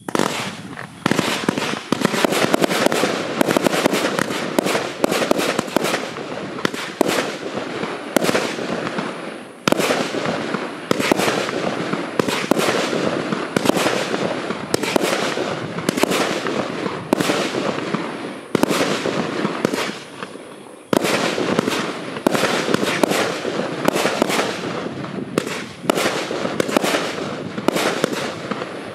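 A 68-shot, 25 mm consumer fireworks cake firing. Shots and aerial bursts come roughly once a second over a continuous noisy wash of crackle, with a brief lull about twenty seconds in.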